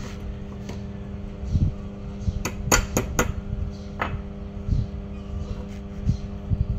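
Metal tools and welding electrode holders being handled and set down on a concrete floor: a quick run of four sharp metallic clinks about two and a half seconds in, another clink about a second later, and a few dull knocks, over a steady electrical hum.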